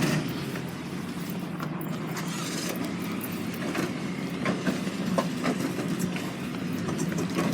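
A car engine running at low speed, a steady low hum, with scattered light clicks and knocks over it.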